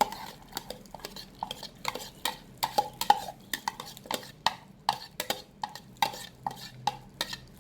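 A spoon striking the inside of a mixing bowl while stirring: quick, irregular taps, about three a second, each with a short ring.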